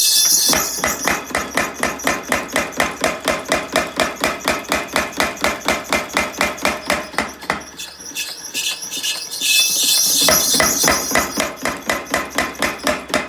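A 1904 Modern mechanical trip hammer, driven by a small electric motor, running and striking in a rapid even rhythm of about five blows a second. A high squeal rides over the blows at the start and again from about ten seconds in.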